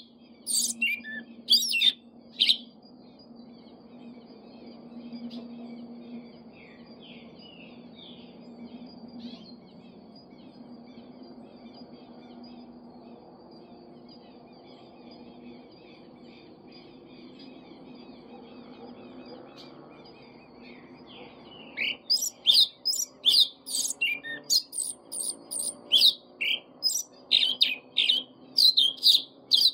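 Caged sabiá-preta thrush singing: a few loud sharp notes at the start, soft continuous twittering through the middle, then a fast run of loud, sharp, repeated notes through the last third. A faint steady low hum lies underneath.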